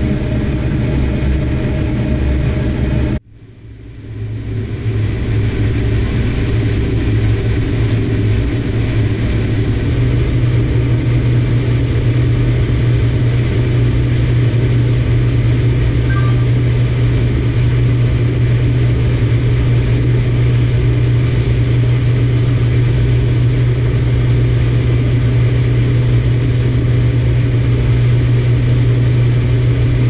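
Farm machine's engine running steadily with a low drone. The sound drops out abruptly about three seconds in and swells back up over the next second or two.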